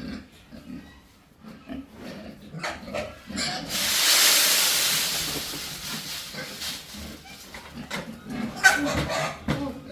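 Pigs grunting in a pen, with short low sounds throughout. About a third of the way in, a loud hiss swells up and fades away over about three seconds.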